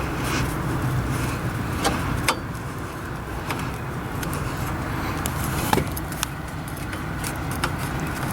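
A few sharp metallic clicks and ticks from a Phillips screwdriver turning a small screw out of a steering-wheel horn assembly, over a steady low hum.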